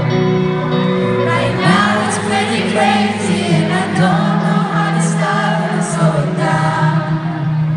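Live pop concert music heard from the audience: a solo singer with an electric guitar, and many voices in the crowd singing along.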